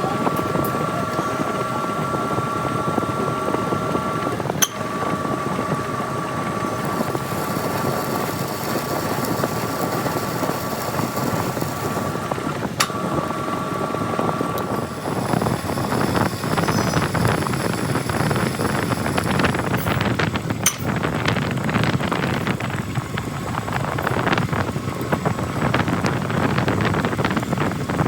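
A metal lathe running with a steady mechanical whine, with a few sharp clicks. About halfway through the whine drops away and a rougher, crackling noise takes over.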